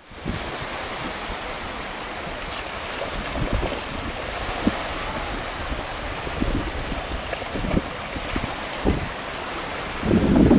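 Small sea waves washing in over a shallow sandy shore, with wind buffeting the microphone in gusts that grow stronger near the end.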